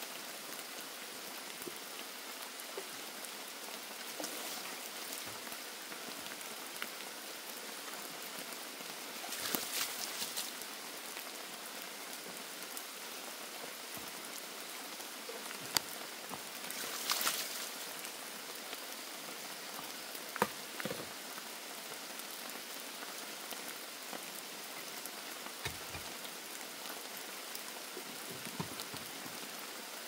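Steady rain shower falling, an even patter of drops, with scattered sharp ticks and two brief louder bursts, about ten and seventeen seconds in.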